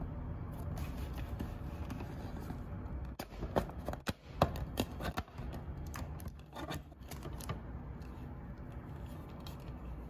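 Hard plastic housing of a Medify MA-22 air purifier being handled, with scraping and a cluster of sharp clicks and knocks about three to seven and a half seconds in, as the round base comes off to reach the plastic-wrapped filter.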